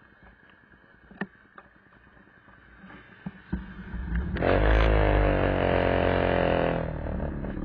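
Vintage two-stroke Vespa scooter engines passing close, loud from about four seconds in with the pitch wavering as the throttle moves, easing off near the end. Before that, only faint road noise and a few light clicks.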